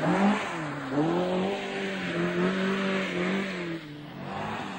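Ford Escort Mk2 rally car's engine under hard use. Its pitch dips, climbs back, then holds high and steady. Near the end the sound cuts to a quieter, steady engine note from a second rally car.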